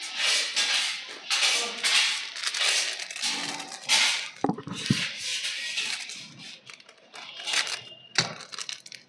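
Plastic spice packets crinkling and rustling in the hands as they are handled over a bowl, in a run of short noisy bursts, with a couple of knocks about four and a half seconds in.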